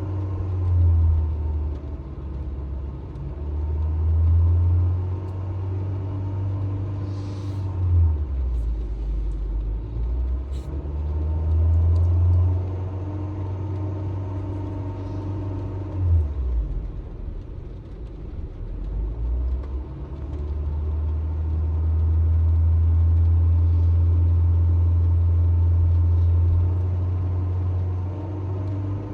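Honda HR-V's engine being revved again and again, each rev rising and falling back, then held up at higher revs for several seconds in the last third.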